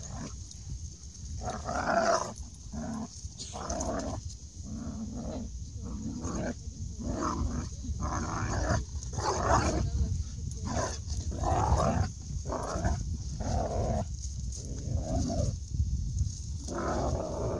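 A German Shepherd and an American Staffordshire Terrier play-fighting, giving many short, irregular growls and snarls.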